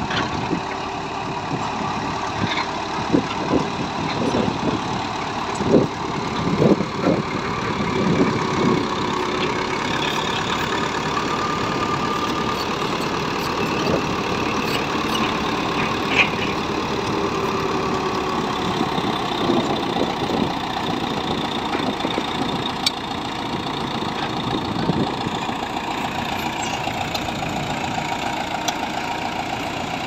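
BEML D50 crawler bulldozer's diesel engine running steadily as the dozer pushes soil, with a run of clanks and knocks about three to nine seconds in.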